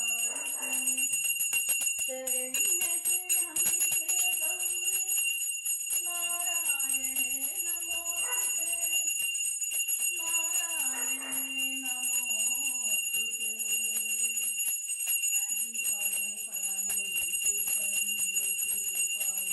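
A puja hand bell rung continuously, its clapper striking rapidly and its ringing held at a steady pitch, over a sung melody.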